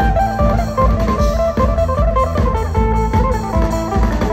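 Background music: a plucked guitar melody over a steady beat.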